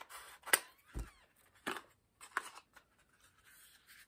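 Scissors snipping open a black cardboard perfume-sample sleeve: a few short, sharp snips, with a dull knock about a second in.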